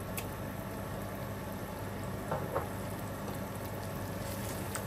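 Dark-browned onions with a little water and ginger-garlic paste bubbling and sizzling in the pot, a steady hiss, with two light knocks about halfway through.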